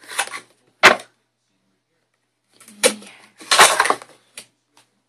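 Hands handling and opening a cardboard product box and its packaging: scraping and rustling, with a sharp knock about a second in and a few light clicks near the end.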